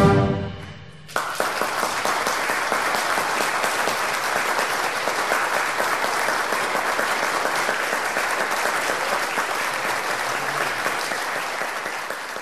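Orchestral music fades out within the first second. Then a crowd breaks into applause all at once and claps steadily, tailing off near the end.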